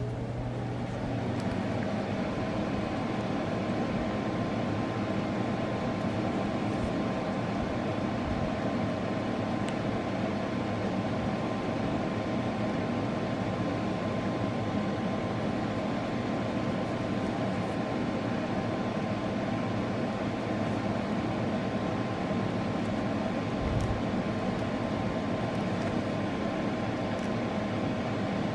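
Steady mechanical hum with a constant whine, settling in about a second in and holding unchanged.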